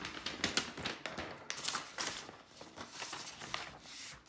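Sheets of paper being handled and turned over: a run of irregular rustles and crinkles with light taps.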